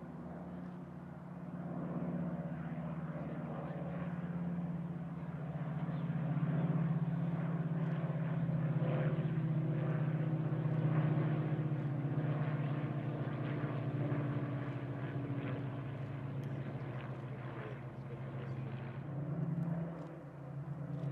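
Three Merlin V12-engined WWII fighters, a Hawker Hurricane and two Spitfires, flying over in close formation: a steady, deep propeller-engine drone. It swells to its loudest around the middle as they pass overhead, then eases off toward the end.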